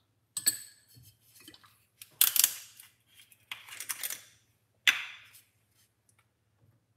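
Kitchen utensils and containers clinking and rattling: a sharp clink with a short ring about half a second in, a longer rattle around two seconds in, and a sharp knock near five seconds. This is the handling of spoons and containers while adding cinnamon to a drink.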